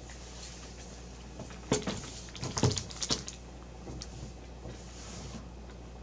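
Handling noise from a graphics card being set down on a crinkly anti-static bag over a wooden table: a sharp knock about two seconds in, then a quick cluster of knocks and rustling just after, with faint rustles of the bag around them.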